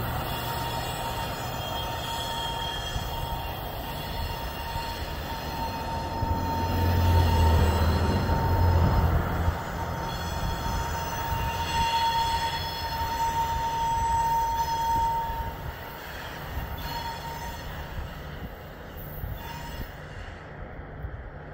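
Freight train of loaded rock hopper cars rolling slowly on curving track. Steel wheels squeal against the rail in a steady high tone over a low rumble of the diesel locomotives and cars. It grows louder in the middle, then fades as the train draws away.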